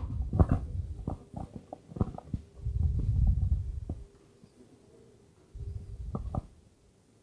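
Handheld microphone handling noise: low rumbles and scattered taps and knocks as the mic is carried and gripped, with two longer rumbles a few seconds apart.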